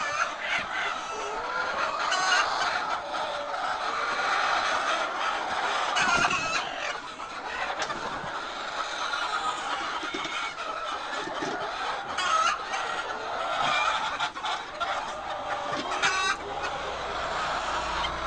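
A large flock of hens clucking and calling continuously, many birds at once, with a few sharp knocks now and then.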